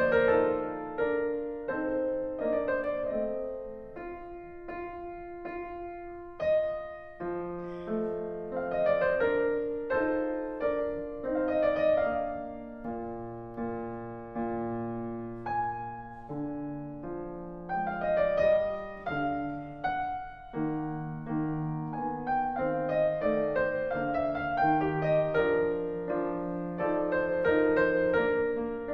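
Background piano music: a slow, gentle melody of struck notes over chords.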